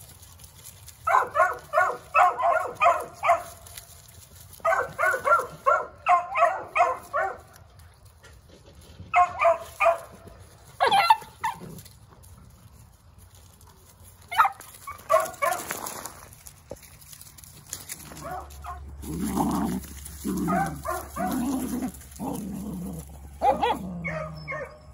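Beagle puppies barking and yipping in quick runs of high, sharp barks, several a second, while tugging at a rag. Deeper, longer barks follow in the last few seconds.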